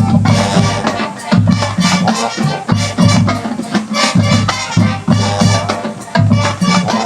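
High school marching band playing loudly: brass with low bass notes moving in a steady beat over drums.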